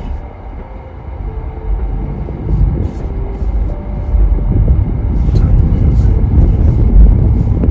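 Car driving, heard from inside the cabin: a steady low rumble of road and engine noise that grows louder about halfway through.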